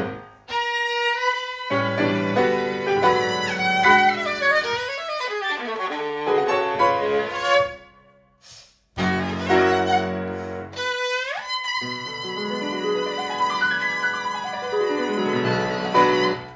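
Viola and piano playing a passage of classical chamber music, with two brief pauses and a quick upward sweep in the viola about eleven seconds in. The music ends near the end.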